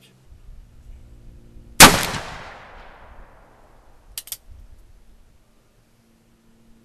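Ruger Old Army percussion revolver firing a single loud shot, with an echo that dies away over about a second. About two and a half seconds later come a few quick metallic clicks as the hammer is cocked for the next shot.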